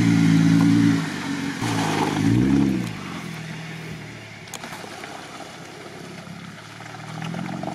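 Jeep Wrangler Rubicon engine pulling away through mud with its differential lockers engaged. The revs rise and fall once about two seconds in, then the engine fades as the Jeep moves off.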